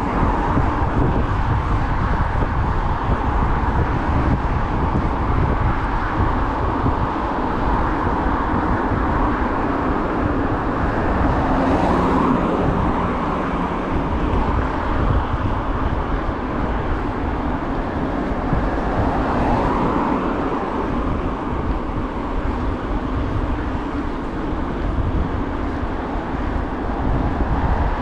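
Steady road noise from riding a bicycle along a city street: a low rumble of wind and tyres, with car traffic going by and swelling a couple of times.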